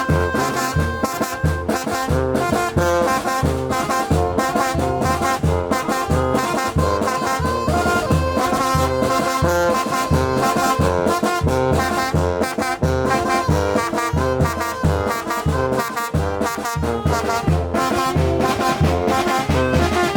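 A brass band plays a chilena: trumpets and trombones carry the tune over a steady low bass pulse of about two beats a second.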